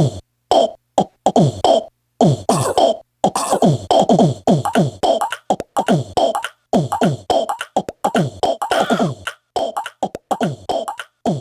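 Short sampled vocal hits, each with a falling pitch, played in quick rhythmic succession from an Ensoniq ASR-10 sampler. Each hit is cut off sharply into silence before the next.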